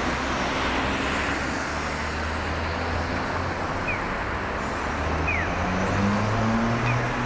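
Road traffic on a city street: a steady wash of tyre and engine noise from passing cars. One engine note rises slightly near the end, and there are a few short, high squeaks.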